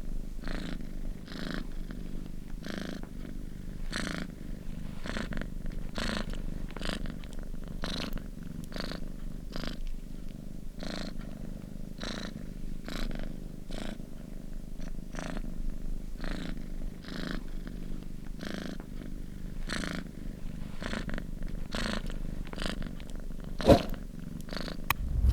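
Domestic cat purring steadily, the purr pulsing about twice a second with its breaths. A single sharp knock sounds near the end.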